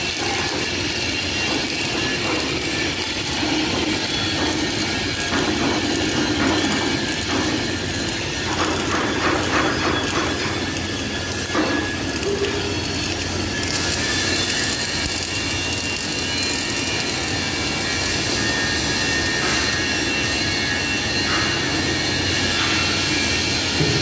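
Steady industrial machine noise filling a steel compartment where welding is underway, with a higher hiss joining about fourteen seconds in.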